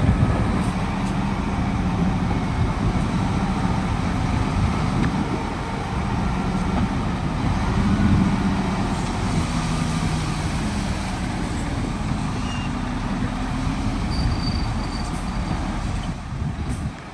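Heavy diesel construction machinery running under load, a deep rumble with an engine note that rises and falls; it gets quieter near the end.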